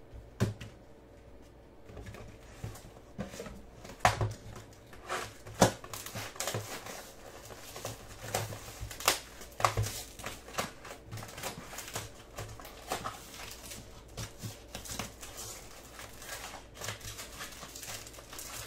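Trading-card pack wrappers crinkling and tearing as Topps Chrome baseball card packs are opened, with cards handled and slid against each other: irregular crackling and clicking, with a few sharper snaps about half a second in and around four and five and a half seconds.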